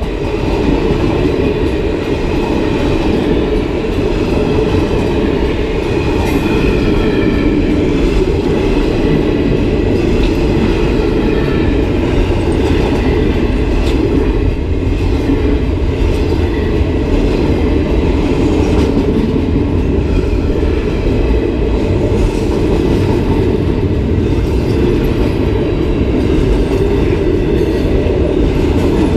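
Railroad cars passing at close range, their wheels rolling over the rails in a steady, loud, low rumble that holds evenly throughout.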